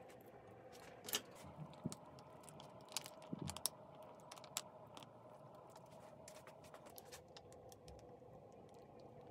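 Quiet food-prep handling: scattered light taps and crinkles as greens are set in a ceramic bowl and a paper packet of topping is shaken out over them, over a faint steady hum.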